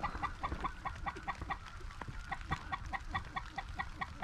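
Specklebelly (white-fronted goose) calling: a rapid, even run of short, high clucking notes, about five a second, kept up throughout.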